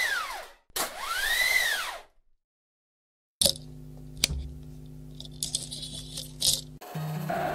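Two whoosh sound effects, one after the other, each swelling and fading with a tone that rises and falls. After a second of silence, a low steady hum with scattered clicks and crackles starts suddenly.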